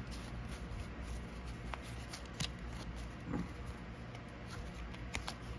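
Board-game cards being handled and sorted by hand: quiet sliding and tapping of card stock with a few soft clicks, over a low steady room hum.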